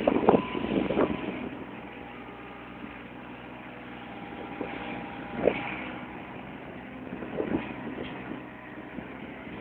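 Mini excavator's diesel engine running steadily while it digs, with short louder knocks from the working arm and bucket in the first second, about halfway through and again near the end.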